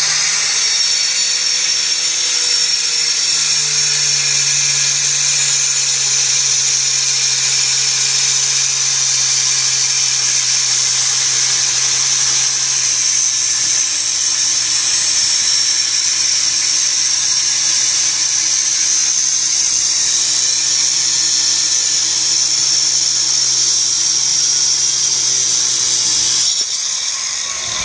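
Handheld stone cutter with a 4-inch (110 mm) tungsten carbide saw blade cutting through beige marble: a loud, steady, high-pitched grinding whine over the motor's hum. The motor note settles slightly lower as the blade bites in, about four seconds in. Near the end the sound drops as the cut finishes.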